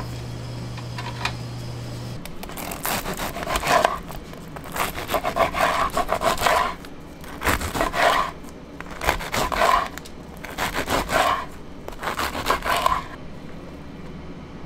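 Serrated bread knife sawing through a crusty baguette in six quick runs of back-and-forth strokes, each a second or two long.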